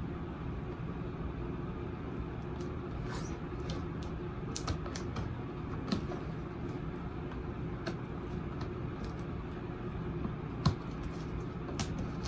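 Scattered light clicks and crinkles of packaging being handled and snipped with scissors during an unboxing, one sharper click near the end, over a steady low hum.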